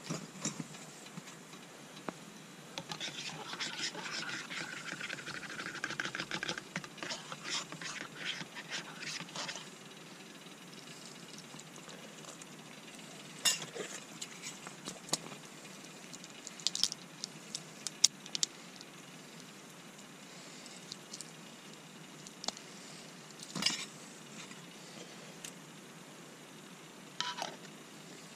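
Metal camp cookware being handled: a few seconds in, rapid clinking and scraping for about six seconds, then scattered single clinks and knocks.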